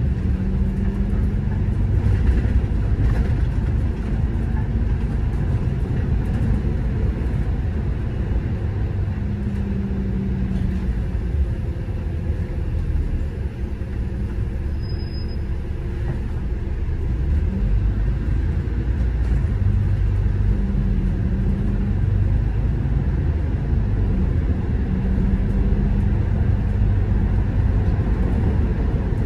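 City bus driving, heard from inside: a steady low rumble of engine and road noise, with a low hum that swells and fades several times.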